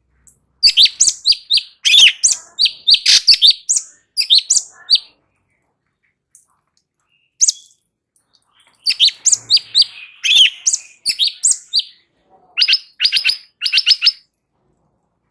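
Cucak cungkok singing in loud, fast phrases of high chirping notes: two long bursts of song separated by a pause of a few seconds, then a quick run of about five repeated notes near the end.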